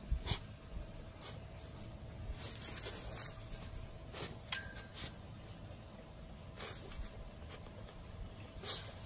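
Grass rustling as a Dalmatian puppy rubs and rolls in a clump of long, narrow-bladed grass: short scattered swishes every second or two over a faint steady hum.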